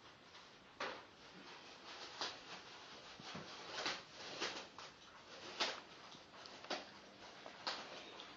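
Black plastic bags crinkling and rustling in irregular sharp crackles as two whippets tear and pull at them.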